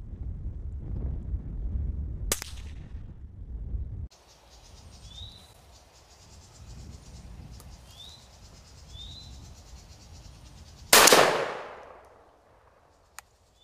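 A rifle shot about 11 seconds in, the loudest sound, with a fading echo over about a second. Earlier, a shorter, sharper crack about two seconds in over low wind noise. After a sudden change in the background about four seconds in, insects chirr with a few short chirps.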